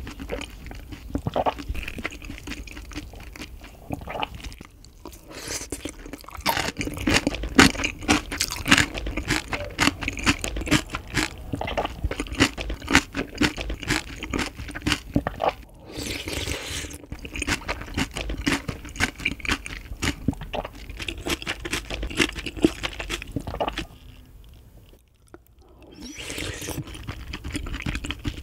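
Close-miked mouth chewing and crunching fresh cabbage kimchi with rice soaked in ice water: a dense run of wet crunches, with a short quiet pause a few seconds before the end.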